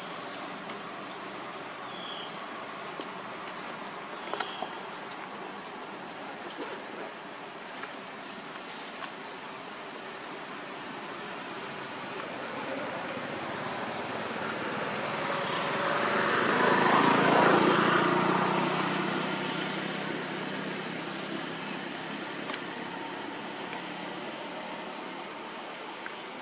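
Steady high-pitched buzz of insects with short repeating chirps. A motor vehicle passes partway through, growing louder to a peak a little past the middle and then fading away.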